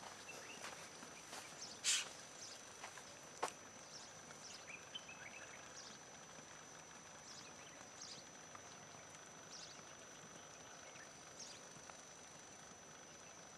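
Faint outdoor ambience with a steady high-pitched whine, a short loud rustle about two seconds in and a sharp knock about a second later, and scattered short high chirps.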